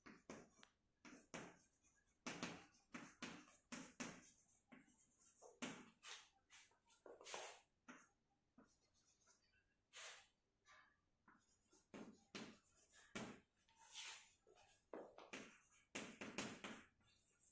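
Chalk writing on a chalkboard: faint, irregular scratching and tapping strokes as words are written out.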